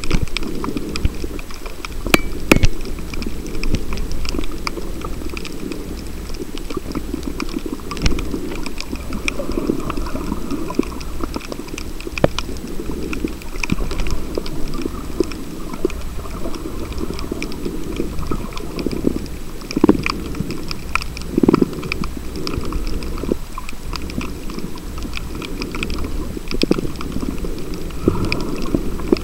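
Underwater reef sound heard through a camera housing: a dense, steady crackle of small clicks over a muffled low rumble of moving water, with a few louder low swells.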